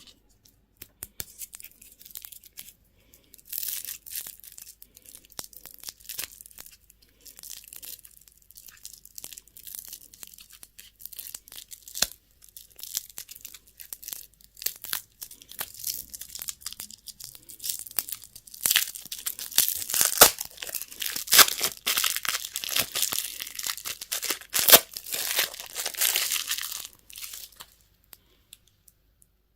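Candy packaging being crinkled and torn open by hand, in many small crackles and rips. They come sparsely at first, grow denser and louder for the last ten seconds or so, and stop shortly before the end.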